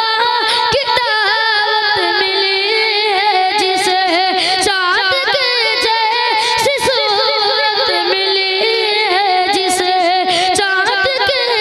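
A boy singing a naat solo and unaccompanied, his high voice sustaining long lines that waver and turn in ornamented runs.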